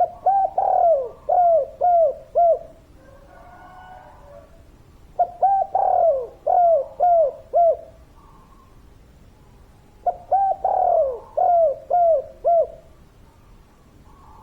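Spotted dove cooing: three phrases about five seconds apart, each a string of five or six short falling coos.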